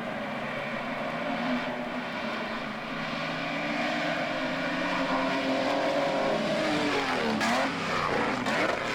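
Pre-war supercharged Mercedes-Benz Grand Prix racing cars running at speed, their engine notes climbing. A car passes close with a sharp drop in pitch about seven and a half seconds in, and another just before the end.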